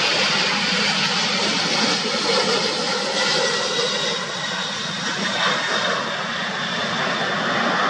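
McDonnell Douglas MD-11F trijet freighter's three turbofan engines at takeoff power during its takeoff roll: a steady rush of jet noise with a faint high whine, easing slightly about halfway through as the aircraft passes.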